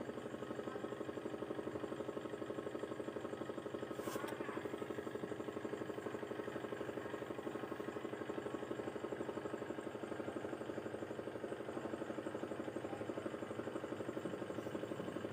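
Firefighting helicopter's rotor and engine running steadily, with a fast, even beat from the blades while it carries a load of water toward a fire. A short click about four seconds in.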